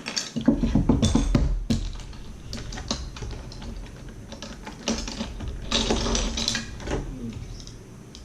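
Plastic Lego bricks clicking and rattling as they are handled and snapped together, with heavy low bumps against the table about a second in.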